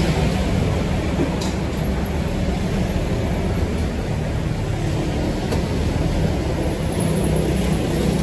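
Steady street traffic rumble, a continuous low drone of passing vehicles, with two brief faint clicks.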